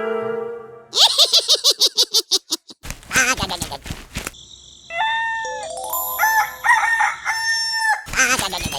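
Brass music fading out, followed by a string of comic sound effects: rapid clucking-like pulses, then long, bending crowing-like calls over a steady high tone.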